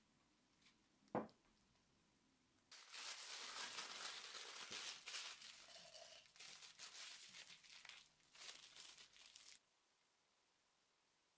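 Paper towel and plastic piping bag crinkling and rustling as they are handled, for about seven seconds, stopping suddenly. A single sharp knock comes about a second before it.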